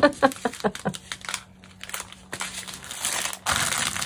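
Plastic crinkling as a plastic-covered diamond painting canvas and its bags of drills are handled and smoothed flat, loudest near the end.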